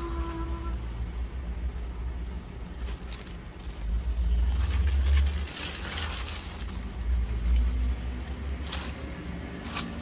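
Plastic mailer bag and clear plastic wrapping rustling and crinkling as a parcel is opened and its contents pulled out, over a steady low rumble that swells louder twice in the middle.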